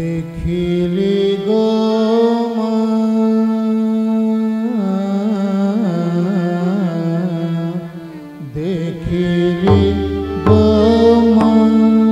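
Male vocalist singing an Odissi classical devotional song, holding long notes with wavering ornaments over a steady instrumental accompaniment. Drum strokes join near the end.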